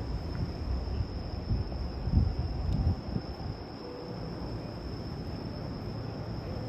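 Trackside ambience: a steady high-pitched insect-like trill over a low rumble that swells for a moment about two to three seconds in.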